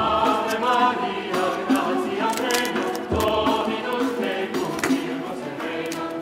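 Background music with voices singing in chorus over a steady held tone.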